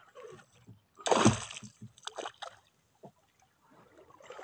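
Water splashing at the side of a small wooden boat as a hand line is hauled in: one loud splash about a second in, then a few shorter slaps about a second later.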